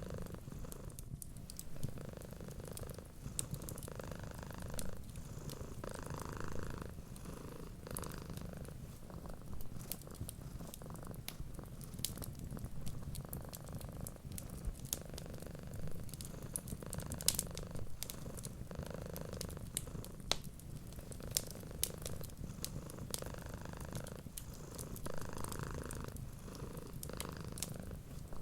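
Domestic cat purring steadily, swelling and easing every second or two, with scattered sharp pops and crackles from a wood fire.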